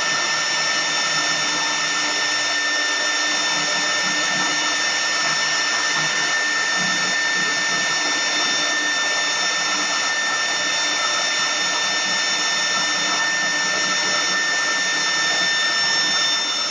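CNC wood router spindle running at speed while its small bit carves a relief into a wooden column turning on the rotary axis. It makes a steady whine with several high tones over the hiss of cutting.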